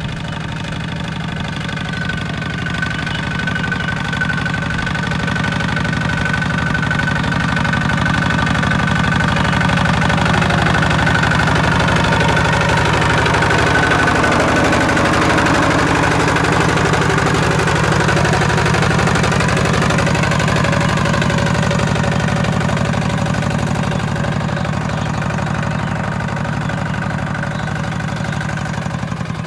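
Single-cylinder diesel engine of a two-wheel walking tractor running steadily under load while ploughing, with a fast even chugging. It grows louder toward the middle and eases off a little near the end.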